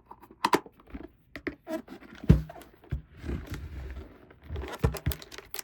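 Small plastic toy pieces being handled and set down, with scattered clicks and taps and one louder knock about two seconds in.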